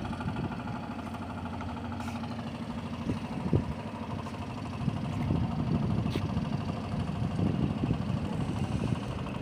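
An engine running steadily at idle with an even rhythmic beat, and a single knock about three and a half seconds in.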